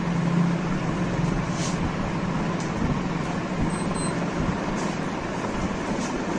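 Steady rushing background noise with a low, even hum underneath.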